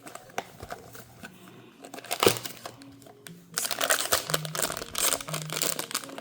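Blind-box packaging being crinkled and rustled by hand, with one sharp crack about two seconds in. The crinkling grows dense and louder past the halfway point, over background music.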